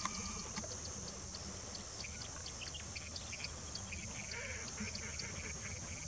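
Quiet wetland ambience: a steady high-pitched insect drone with light, regular ticking and a few faint bird chirps.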